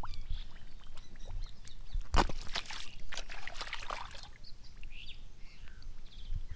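Hands working in wet mud and shallow water, squelching and splashing, with a cluster of sudden splashy bursts about two to three seconds in.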